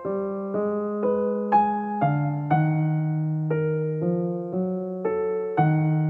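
Gentle, slow piano music, with a note or chord struck about twice a second over held low notes.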